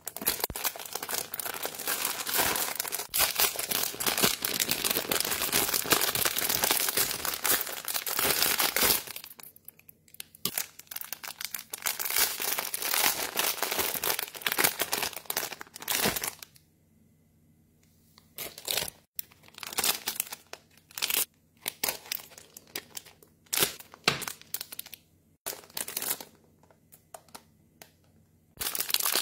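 A parcel's packaging being unwrapped by hand, crinkling and tearing. Dense crinkling for about nine seconds, then scattered crinkles and rustles with a brief pause just past the halfway point.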